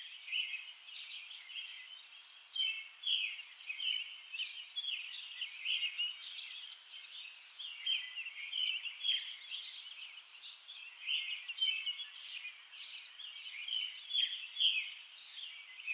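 Songbirds chirping and singing outdoors, several short calls and trills a second from more than one bird, without a break.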